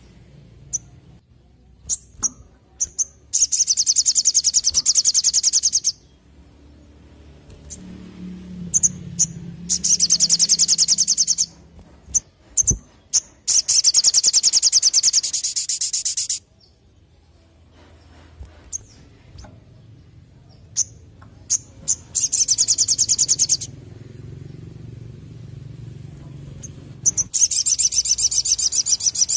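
Sunbird (sogon) singing: five fast, high, buzzing trills of two to three seconds each, with short sharp chip notes between them.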